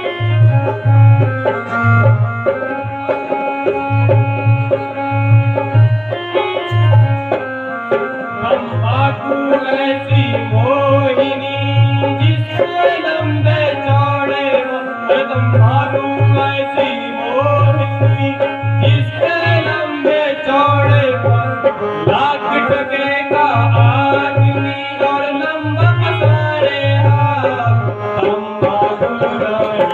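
Indian folk music: a hand drum keeping a steady beat under a long held drone, with a wavering melody over it.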